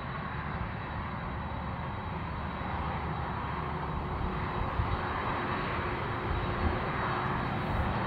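Boeing 747-400F's four turbofan engines running at taxi power: a steady jet rumble and hiss that grows slowly louder as the freighter taxis.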